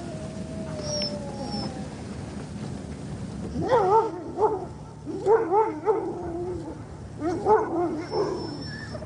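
Sled dogs howling. A faint drawn-out howl falls away in the first two seconds, then from about three and a half seconds in come louder howls that waver up and down in pitch.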